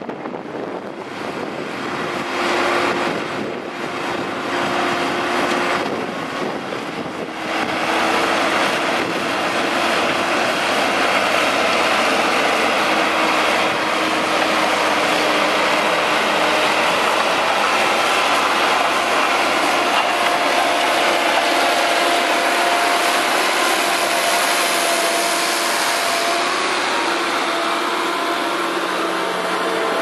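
Ford TW-35 tractor's turbocharged six-cylinder diesel engine running steadily under load while pulling front- and rear-mounted ploughs. It grows louder about eight seconds in.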